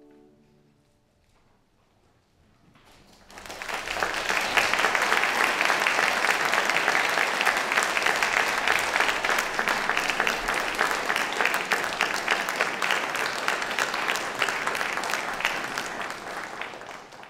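The last cello-and-piano notes die away into a short near silence, then an audience breaks into steady applause about three seconds in, which fades out near the end.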